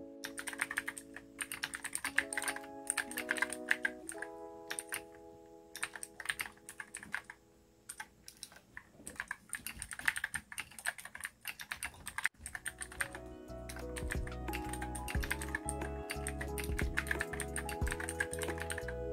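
Typing on a mechanical keyboard: a quick patter of key clicks with a short pause about halfway through, over lo-fi background music that picks up a bass beat past the middle.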